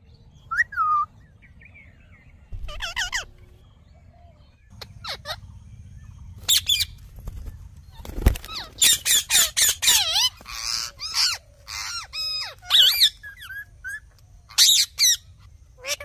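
Rose-ringed parakeets calling with short squawks and chirps: a few scattered calls at first, then many quick overlapping calls through the middle of the stretch. One sharp thump sounds a little past the midpoint.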